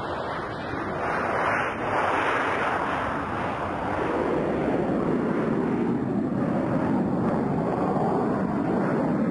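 Myasishchev M-55 Geophysica's twin turbofan engines at takeoff power during the takeoff roll and lift-off: a steady rushing jet noise that grows louder about a second in.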